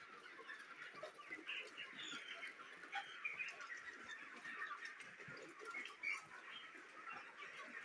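A flock of broiler chickens chirping and peeping continuously while feeding, many short high calls overlapping into a steady chatter, with a few scattered small clicks.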